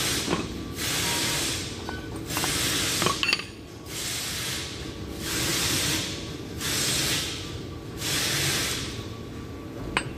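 Brake drum on an Isuzu truck's front hub spun by hand again and again, each push giving a rushing whir of about a second, with a faint clink or two. It is a check of the wheel bearing after setting the hub nut hand-tight: the drum turns freely without binding.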